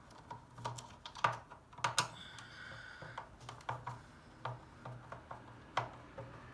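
Irregular light clicks and taps of a screwdriver working the screws and plastic parts of a washer dryer door, with a brief squeak just after two seconds in.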